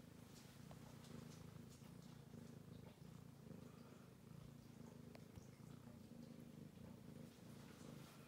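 Domestic cat purring softly and steadily, the purr pulsing in even cycles.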